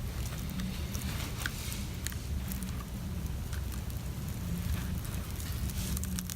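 Faint scattered clicks and light taps from a small Torx screwdriver and parts being handled inside an opened MacBook Pro, over a steady low background hum.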